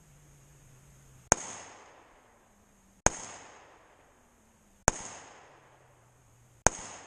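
Four gunshots from a handgun, evenly spaced about two seconds apart. Each is a sharp crack followed by an echo that dies away over about a second.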